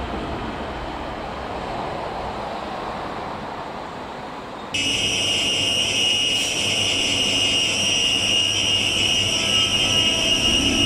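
DART electric train moving off, its rumble slowly fading. About five seconds in, the sound switches abruptly to a DART electric multiple unit alongside the platform, with a louder, steady high-pitched whine of several pure tones over a low rumble.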